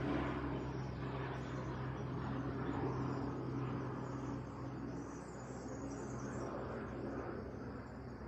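Steady outdoor background noise with a low steady hum, easing slightly about halfway through.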